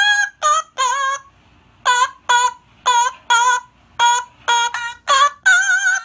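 Yellow-crowned amazon parrot singing in duet with a tablet playing back a recording of her own singing: about a dozen short, clear sung notes, mostly in quick pairs, with a short pause after about a second and a longer wavering note near the end.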